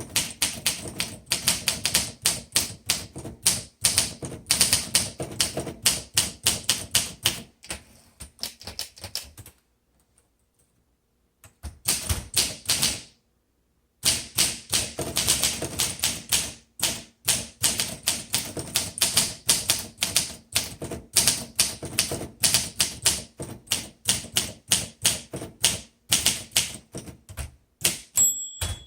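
1957 Olympia SM3 manual typewriter being typed on at a brisk pace, a fast run of sharp key strikes. The strikes stop for a few seconds about a third of the way in, then carry on, with a brief ringing tone near the end.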